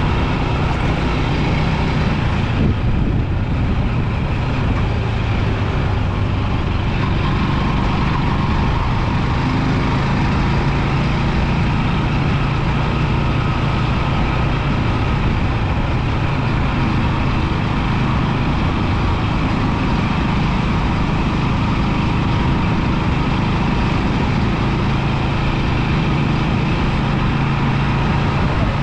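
Rusi 250 motorbike running steadily on the road: a continuous low engine hum under a steady rush of wind and road noise.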